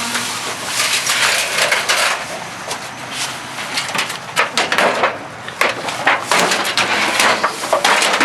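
Irregular clattering and knocking of scrap items being handled and loaded onto a truck bed, with many sharp knocks in quick succession, busiest in the second half.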